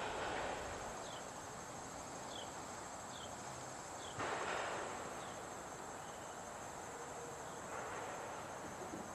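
Steady high-pitched chorus of insects such as crickets or katydids, with a few faint short falling chirps. A rushing noise swells for about a second around the middle and then fades.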